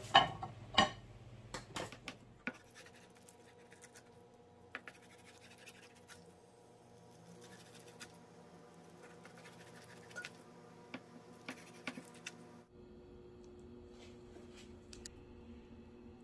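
A ceramic plate knocks and clinks against a frying pan a few times as it is set over the omelet, loudest in the first second. Then a kitchen knife scrapes and cuts through the konjac-noodle egg omelet on a wooden cutting board, with scattered light clicks.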